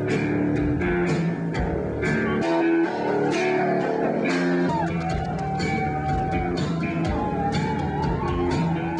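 Rock band playing with electric guitar, bass and a steady drum beat. About five seconds in, a held lead note comes in, its pitch wavering up and down.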